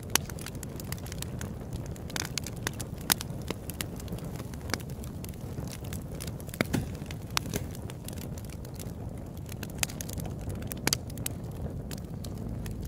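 Sound-design bed of scattered crackles and pops over a low steady rumble, with a sharper pop now and then.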